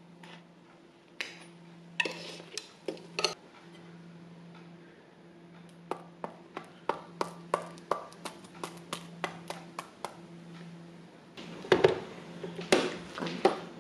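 Slotted metal tongs clicking and tapping against a ceramic plate and a contact grill while crisp croffles are handled. There are a few clicks early, then a quick regular run of about three or four a second from about six to ten seconds in, and a louder clatter near the end, over a low steady hum.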